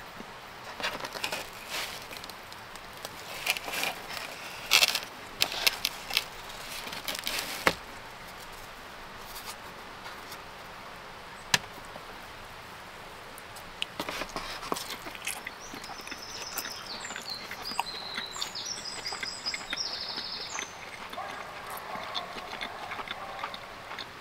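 Close-miked eating of pizza: a run of sharp crunchy bites and chewing, then quieter, with a string of high-pitched calls in the second half.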